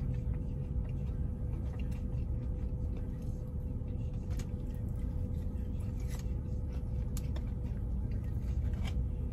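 Steady low rumble and faint constant hum inside a parked car's cabin, with a few faint, scattered light clicks as fries are picked up and eaten.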